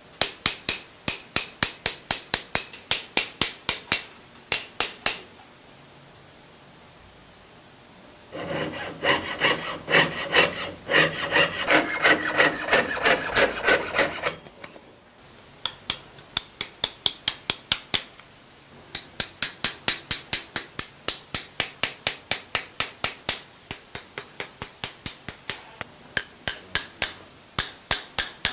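Small metalworking hammer tapping a sheet-metal piece on a steel stake, about four or five sharp taps a second. About eight seconds in, a hand file rasps back and forth across the metal's edge for about six seconds. Then the hammer tapping resumes and runs on.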